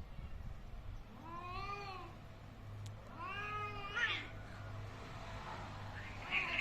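Angry cat yowling twice, each drawn-out call rising and then falling in pitch over about a second, with a short gap between them; the threatening yowls of a cat in a standoff or fight.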